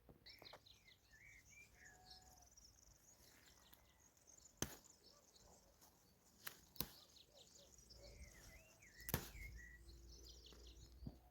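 Small birds chirping faintly in short, curving calls, with four sharp clicks or knocks spread through the middle and later part.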